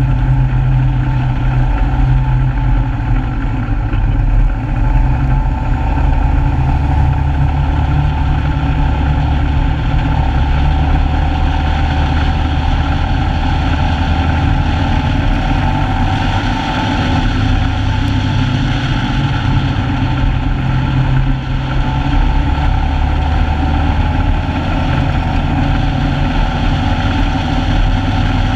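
Engine of a side-by-side off-road vehicle (SSV) running steadily at a cruise, heard from a camera mounted on its hood.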